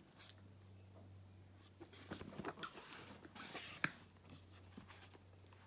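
Tarot cards and their box being handled: faint rustling and light taps, with a short scratchy rustle about three and a half seconds in and a sharp click just after.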